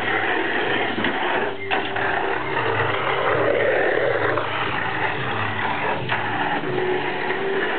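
Tamiya Mini 4WD cars running on a plastic track, their small electric motors and gears whirring steadily.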